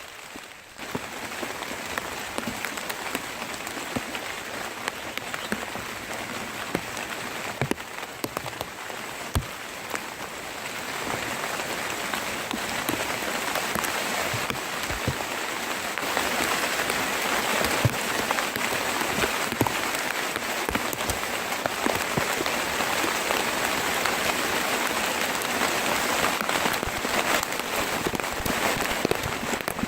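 Rain falling steadily, with separate drops striking close by; it grows heavier about a third of the way in and again around halfway.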